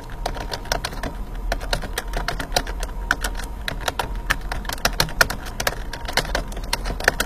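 Typing on a computer keyboard: quick, irregular key clicks, several a second, over a low steady hum.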